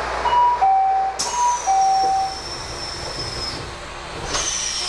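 Two-tone electronic chime in a Kobe Electric Railway train car, a high note then a lower one, sounded twice, over the car's steady rumble and hiss. After it comes a thin high whine that slides slowly down in pitch, twice.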